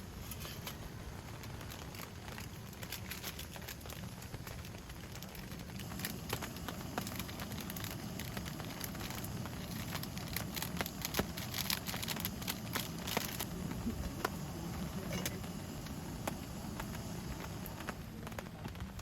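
Raindrops pattering irregularly on a tent, with many sharp separate drips that grow busier for a few seconds in the middle, over a steady low hiss of rain.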